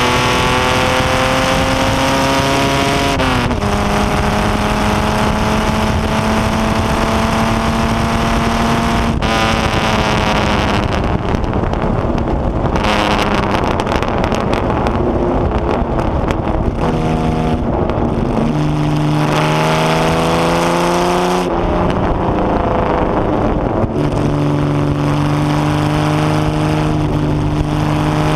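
Jaguar straight-six engine of an HW Alta-Jaguar racing car at full race pace, heard from the cockpit. The note climbs through the revs and drops sharply at the upshifts, about 3 and 9 seconds in. It then falls away and goes rougher while the car lifts and changes down through a quick run of steps, then climbs hard again with two more upshifts near the end, with wind noise over the open cockpit throughout.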